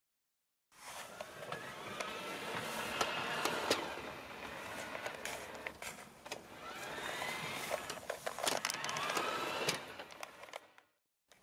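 Electric motor and gearing of a garden-railway diesel model locomotive whining as it runs, the pitch rising and falling in two swells, with scattered clicks and crackles. The sound starts abruptly a moment in and cuts off just before the end.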